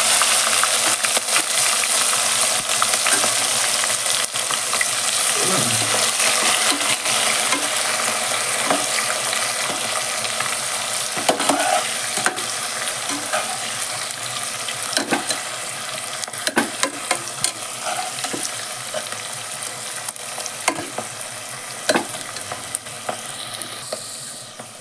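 Sliced onions sizzling as they fry in hot oil in a pressure cooker, stirred with a spatula that clicks and scrapes against the pot every so often. The sizzle slowly dies down as the onions fry.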